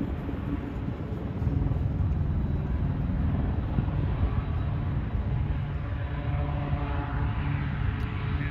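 A distant engine droning steadily, growing louder about a second and a half in.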